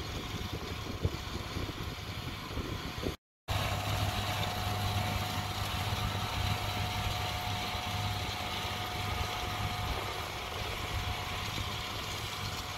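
Agco Allis 9785 tractor engine running steadily as it pulls a 16-row corn planter, with a low hum. The sound cuts out completely for a moment about three seconds in, then resumes.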